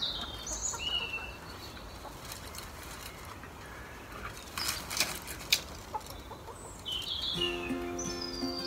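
Hens in a backyard run, with a brief flurry of wing flaps about five seconds in as one hen flutters up the litter heap. Small birds chirp at the start and near the end, and background music comes in near the end.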